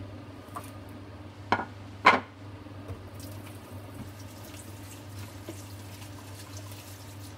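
Chicken adobo simmering in a covered frying pan, a faint bubbling and sizzling over a steady low hum. Two sharp knocks come about a second and a half and two seconds in.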